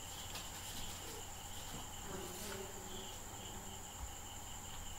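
Faint background noise: a steady high-pitched whine with a weaker, pulsing tone lower down, over a low hum and hiss.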